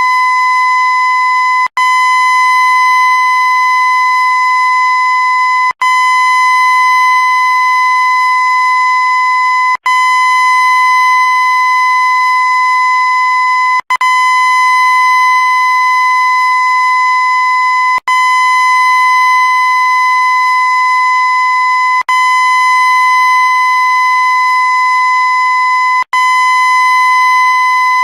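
Loud, steady electronic-sounding tone held on one unchanging pitch, rich in overtones, looped with a very brief dropout about every four seconds.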